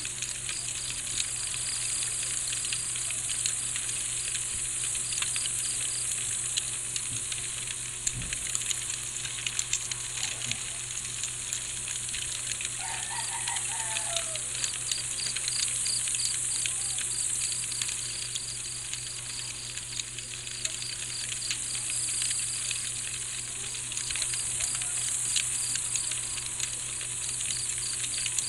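Night insect chorus: a steady high-pitched buzz that swells and fades slowly, with crickets chirping in regular pulses of about three a second. A short bird call comes about halfway through, over light scattered clicking.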